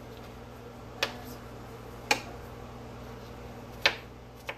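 Kitchen knife striking a plastic cutting mat while dicing strawberries: four sharp chops about a second apart.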